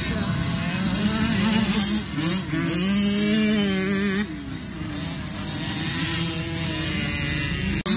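Small dirt bike engines revving, the pitch rising and falling as the riders go over the track. The sound breaks briefly about two seconds in and again about four seconds in.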